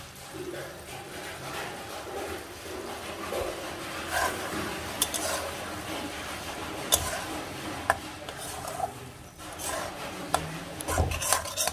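Metal spatula stirring and scraping thick chana masala around a metal kadai, with a few sharp clinks of the spatula against the pan, most of them near the end.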